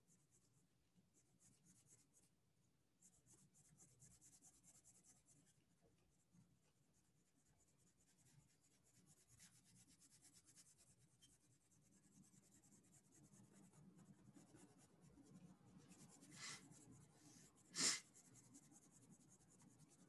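Faint scratching of a colored pencil's dull chisel tip on paper, shading with quick, repeated broad strokes. A brief louder sound stands out about two seconds before the end.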